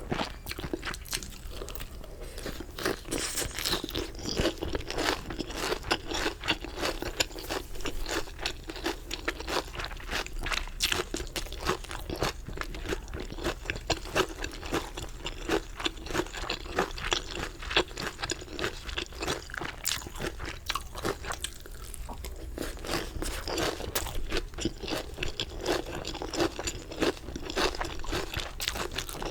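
Close-up chewing of crunchy chicken: dense, crisp crunches one after another, with a short quieter lull about three-quarters of the way through.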